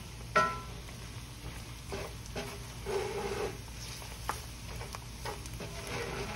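Wooden spoon stirring and scraping sliced onions through a browning flour gravy in a cast iron skillet, over a faint sizzle. A sharp knock with a brief ring comes about half a second in, and a smaller click a little after four seconds.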